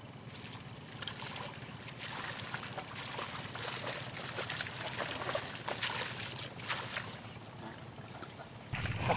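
Baitcasting reel (Shimano Curado) cast and cranked in: a steady run of fine, dense clicking and ticking from about a second in until near the end.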